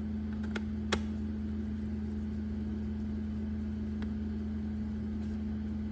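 A steady low hum with two sharp small clicks about a second in and a faint one later, as small plastic and metal parts of a head-unit module are handled and fitted.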